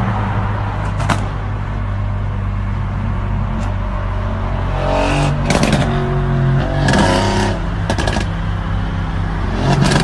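Car engine running at speed, heard from inside a moving car's cabin, with a few short surges in pitch as it revs and several sharp cracks over the steady drone.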